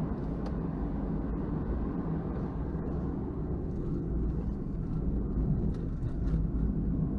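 Suzuki Every van's turbocharged 660 cc three-cylinder engine and road noise while driving: a steady low rumble.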